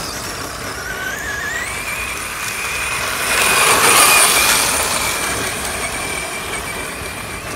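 RC short-course truck's motor whining, the pitch rising as it accelerates and then holding steady. It grows loudest about three to four seconds in as the truck passes close by, its tyres throwing dirt.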